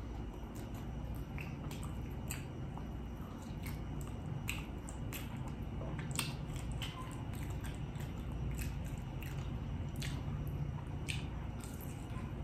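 Close-up chewing and wet mouth sounds of a person eating: irregular soft smacks and clicks, a few a second, over a steady low hum.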